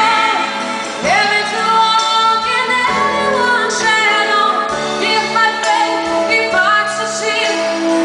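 Woman singing into a microphone with a live band playing behind her.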